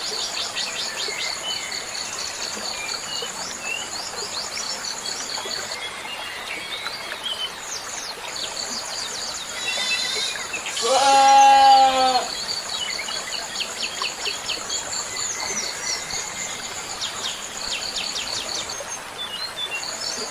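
Small birds chirping and trilling continuously in high, rapid twitters, with a goat bleating once, loudly, about eleven seconds in.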